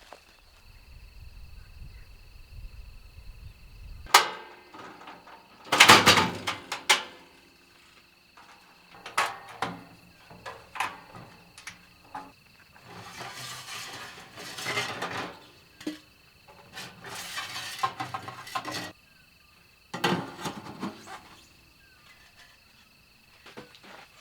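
Crickets chirring steadily throughout, under a series of clinks, knocks and rustles from gear being handled, loudest in a cluster about six seconds in.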